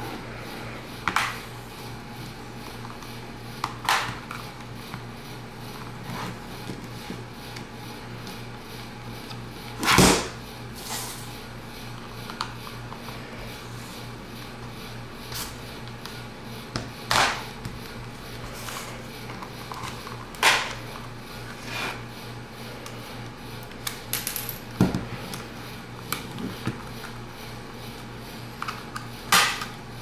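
Plastic snap clips of a 7-inch tablet's back case clicking loose as the case is pried open with a small flathead screwdriver: about a dozen sharp clicks spread out, the loudest about ten seconds in, over a low steady hum.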